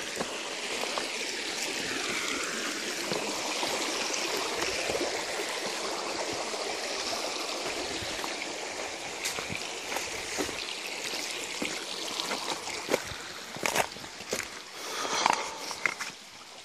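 Small stream trickling and babbling over stones, a steady rush of water. Toward the end, several sharp footsteps knock on rocks and gravel.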